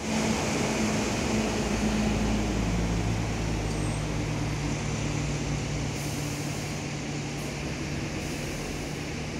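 Double-decker bus's diesel engine idling steadily, its pitch settling a little lower about two and a half seconds in.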